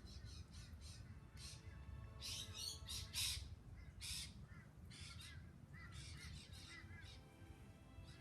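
Birds calling: a series of harsh squawks, the loudest about three seconds in, with shorter chirps through the middle.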